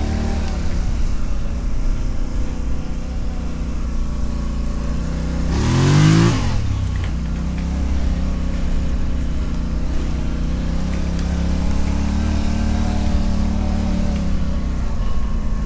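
Four-wheeler (ATV) engine running as it rides along a trail, with one brief rev up and back down about six seconds in, the loudest moment.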